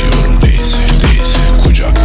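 Loud background music with a heavy bass line and a steady beat, in a hip hop style.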